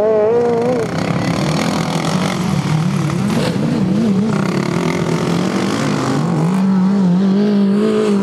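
Racing ride-on lawn mower engines running hard on a dirt track, several at once, their pitch rising and falling as the drivers work the throttle; from about six and a half seconds in, one engine holds a steadier, rising note.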